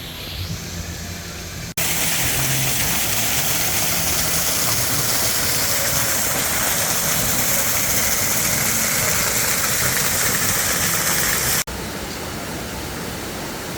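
Loud, steady rushing water, like a waterfall, that cuts in sharply about two seconds in and cuts off sharply near the end. On either side of it there is quieter outdoor ambience with a low hum.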